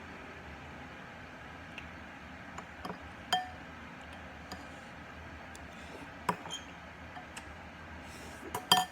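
Glassware clinking a few times: one ringing glass clink about three seconds in, another knock a few seconds later, and a quick cluster of clinks near the end, over a steady background hiss.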